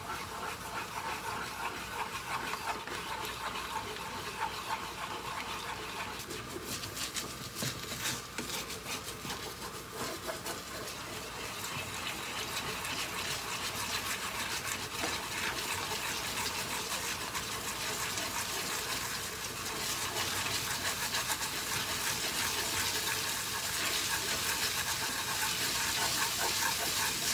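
Beaten egg sizzling in a frying pan on medium heat while it is stirred with chopsticks and sets into scrambled egg, with light scraping and taps of the chopsticks on the pan. The sizzle grows slowly louder.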